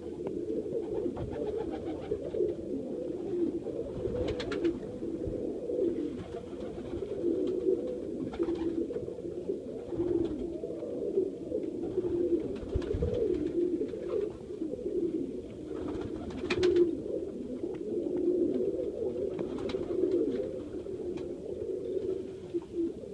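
A flock of Serbian highflyer pigeons cooing, many low coos overlapping into a steady chorus, with a few short sharp noises now and then.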